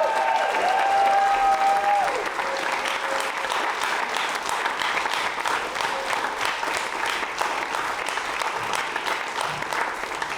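Live audience applauding and cheering, with several long shouted whoops in the first two seconds over dense clapping that carries on steadily.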